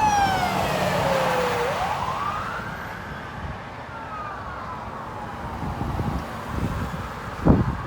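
Emergency vehicle siren wailing: its pitch sweeps down, back up, and slowly down again while it fades, over a low traffic rumble. A sharp thump near the end.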